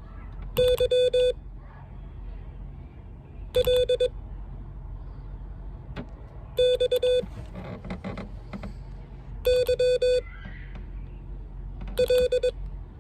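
Morse code (CW) sidetone keyed on a paddle, sending single practice letters: five short groups of dits and dahs on one steady beep tone, about three seconds apart.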